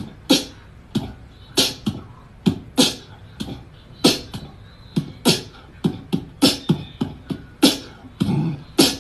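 Background music track of sharp, beatbox-like percussive hits over low thumps, in an uneven rhythm of one to two beats a second.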